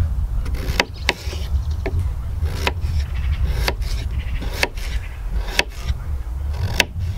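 Kitchen knife slicing through potatoes and tapping down on a wooden chopping board, about eight sharp knocks at roughly one a second, over a steady low rumble.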